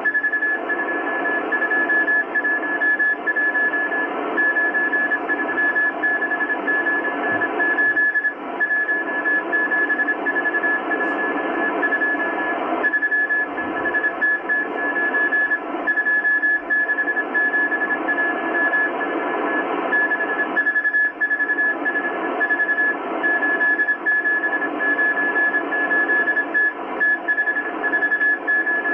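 Morse code from the M12 Russian spy station on 14951 kHz, received on a Kenwood R-1000 shortwave receiver: a single steady beep tone keyed on and off in dots and dashes over a constant hiss of band noise.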